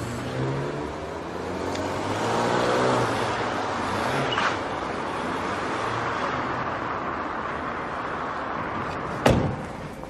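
Car engine and road traffic noise, the engine's pitch shifting in the first second or so, with one sharp knock near the end.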